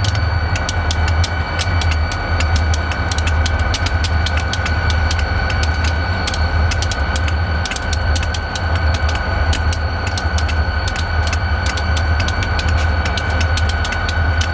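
Indiana & Ohio Railway diesel locomotive standing and idling: a low, pulsing rumble with a steady high whine and quick, irregular clicking over it.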